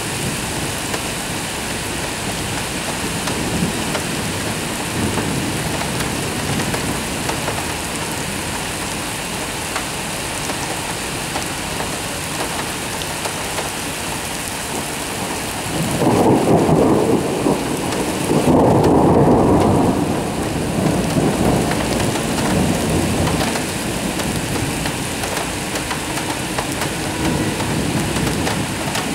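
Heavy rain falling steadily, with a long roll of thunder breaking in about halfway through, loudest for a few seconds before rumbling away.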